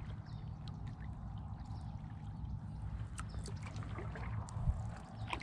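Kayak paddling: water trickling and dripping off the paddle blade with small splashes and ticks, over a steady low rumble.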